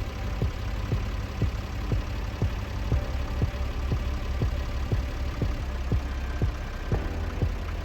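Engine of the machine lowering the beam, running at a steady idle, with a sharp regular click about twice a second.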